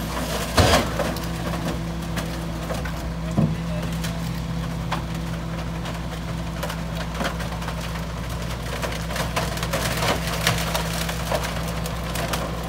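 Wooden storm debris cracking and splintering as it is thrown into and crushed in a rear-loader garbage truck's hopper, over the truck's steady engine hum. A loud crack comes about half a second in and another about three and a half seconds in.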